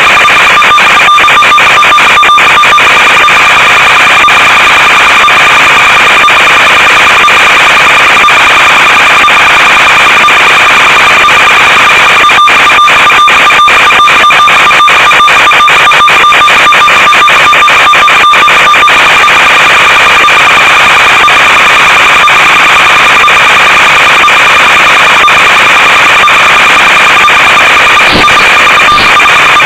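Loud, steady static hiss from an analog FPV video link's audio channel, carrying a constant whine. It is broken by many brief dropouts, most often in the middle stretch.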